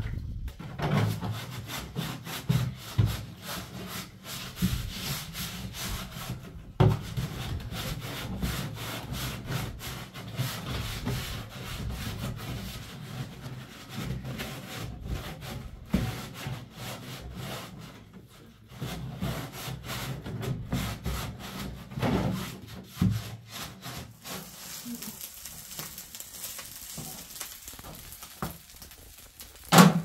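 Hands rubbing and scrubbing against a plastic jerrycan in quick repeated strokes.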